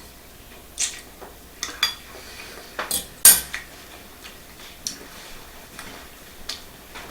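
Cutlery clinking and scraping on a plate while the stuffing is being eaten: a scattering of light clicks, the sharpest about three seconds in.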